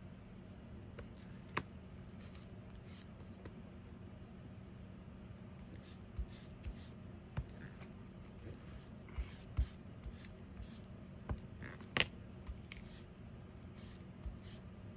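A foam ink blending tool dabbed and rubbed over a plastic stencil on paper: soft scuffing and scraping with scattered light taps, a few sharper ones in the second half.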